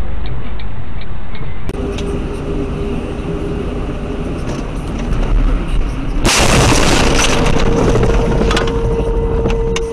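Vehicle collision: car road noise, then a sudden loud crash about six seconds in, a noisy burst lasting about a second. A steady tone follows.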